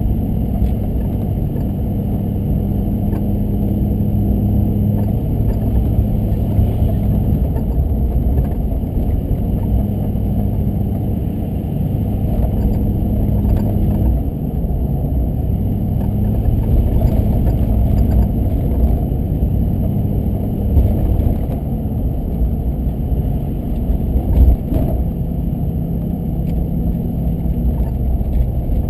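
Car driving, its engine hum and road rumble steady and low, the engine note shifting up and down every few seconds. Two short knocks in the last third.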